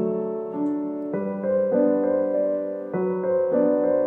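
Background music: solo piano playing a slow melody over chords, with new notes struck every half second to a second.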